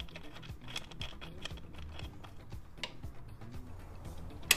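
Faint background music under small clicks and taps of hands working on a motorcycle, with one sharp click near the end as the ignition key switch is turned.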